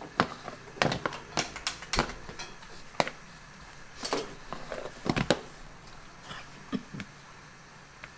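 A plastic rice paddle knocking and scraping against a stainless steel colander as cooked rice is tossed and mixed, in irregular sharp taps about a second apart.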